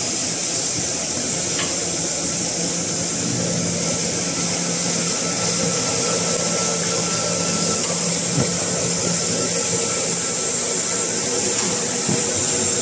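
Toilet-roll bundling and packing machine running: a steady mechanical drone with a constant high hiss and a low hum, with a few faint clicks.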